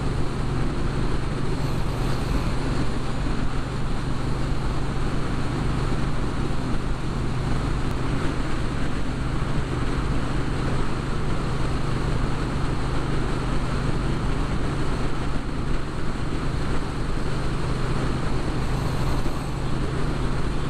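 Motorcycle engine running steadily at highway cruising speed, with wind and road noise mixed over it.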